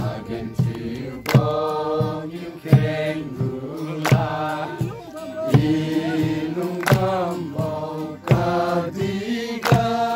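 A group singing a Liangmai gospel song together, accompanied by acoustic guitar, with a sharp hand clap about every second and a half.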